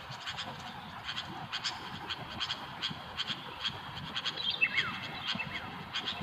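Sooty-headed bulbuls calling: a steady run of short, harsh chattering notes, with a few brief whistled notes, some sliding down in pitch, about four and a half seconds in.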